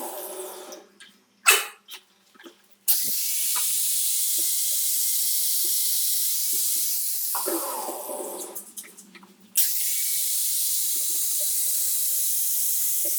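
Steady hiss of a spray or compressed-air tool, switched on abruptly about 3 seconds in, easing off near the middle and switched on again. Short clicks fall in the pauses.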